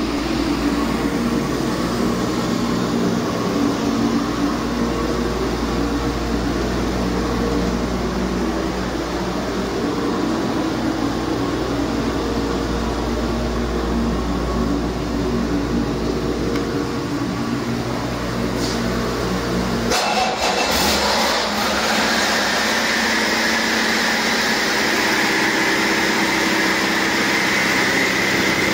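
Cummins ISX15 inline-six diesel running steadily on an engine test stand. About two-thirds of the way through, the deep low rumble falls away and a higher whine comes in, slowly rising in pitch.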